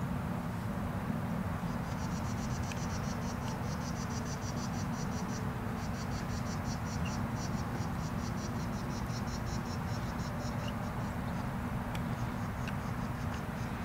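Crickets chirping in fast, high-pitched pulsed trills that stop briefly about halfway through, over a steady low background rumble. A few faint clicks sound in between.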